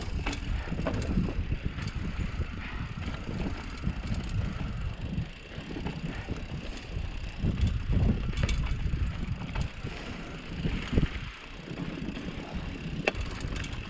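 Mountain bike descending a loose, dusty, rocky trail: uneven rumbling tyre noise over dirt and rock, with scattered clicks and knocks from the bike.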